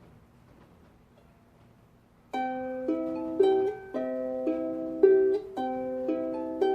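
Faint hiss, then about two seconds in a plucked string instrument starts playing: a repeating figure of ringing notes.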